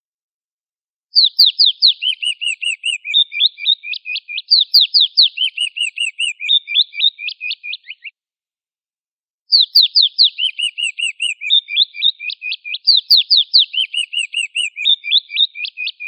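Eagle calls: a long run of rapid, high chirping notes, first fast downward-sweeping notes, then lower piping notes. It starts about a second in, stops about eight seconds in, and the same phrase comes again after a gap of about a second and a half.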